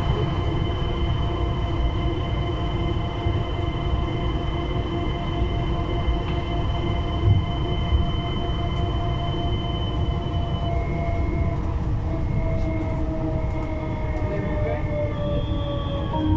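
Siemens VAL 208 rubber-tyred automatic metro train running, heard from inside at the front: a steady rumble with several steady high whining tones from the drive. Two brief knocks come about halfway through, and the whine falls in pitch over the last few seconds as the train slows into a station.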